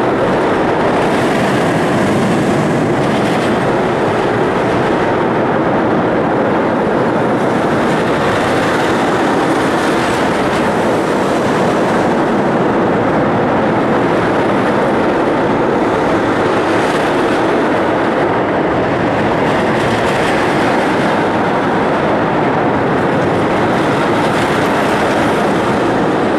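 Steady, loud rumbling din of an indoor amusement park hall, with rides running on steel roller-coaster track. It goes on without a break or a clear single event.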